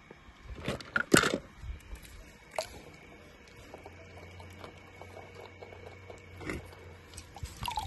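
Water splashing and sloshing as a hand reaches into a swimming pool among toy cars, with a few sharp splashes about a second in and again around two and a half and six and a half seconds in.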